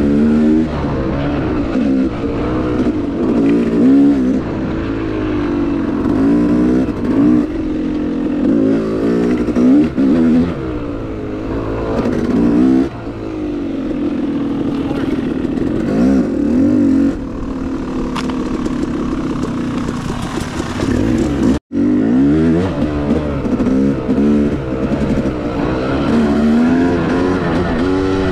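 Yamaha YZ250X two-stroke dirt bike engine under way on a trail, its pitch rising and falling again and again as the throttle is opened and closed. The sound cuts out for an instant about three quarters of the way through.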